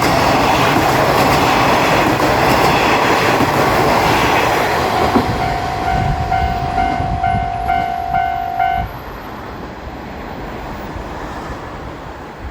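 JR Shikoku 1000-type diesel railcar running past a level crossing, its wheels and engine loudest in the first few seconds, while the crossing's warning bell rings in a steady pulsing clang about twice a second. The bell cuts off suddenly about nine seconds in as the crossing clears, leaving the train's fading rumble.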